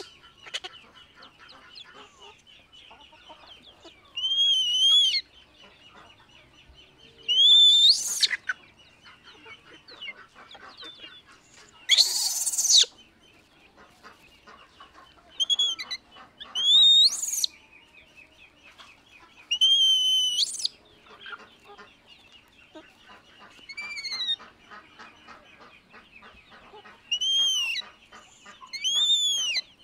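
Baby macaque crying in a series of high-pitched, arching screeches, each about a half to one second long, about ten in all, one of them harsher and rougher. A steady faint high buzz runs underneath.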